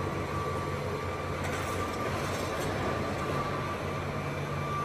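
Diesel engines of large crawler excavators running steadily, with a thin high whine that fades in and out.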